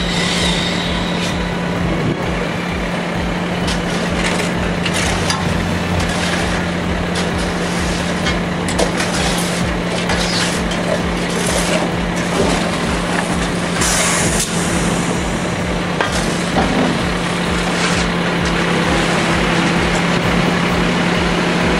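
Concrete mixer truck's engine running steadily as it discharges concrete for a footer, with scattered short scrapes and knocks over it.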